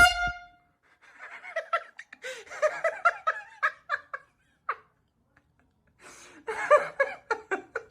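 A loud air-horn blast cuts off right at the start, followed by people laughing in bursts, with a pause of about a second before a second round of laughter.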